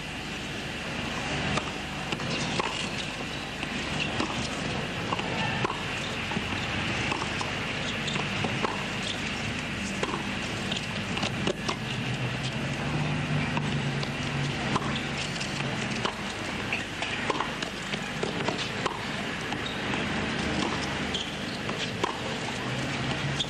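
Tennis rally on a hard court: racket strikes and ball bounces as sharp pops about once a second, over a steady hiss from the old broadcast tape.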